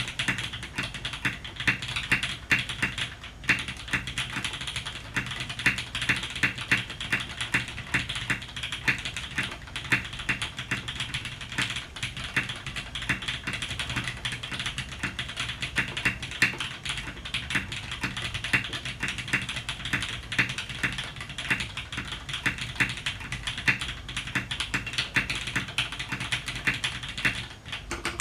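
Continuous typing on a custom TKL mechanical keyboard (Jane V2 CE, top-mounted aluminium plate) with polished, lubed Cherry MX HG Black linear switches and PBT keycaps: a steady stream of keystroke clacks, several a second.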